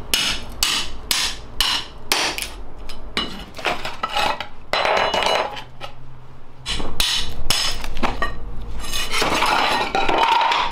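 Hammer driving a flat pry bar into ceramic floor tile to chip it out, a quick run of sharp metal-on-tile strikes for the first few seconds. Then more scattered strikes and broken tile pieces clattering.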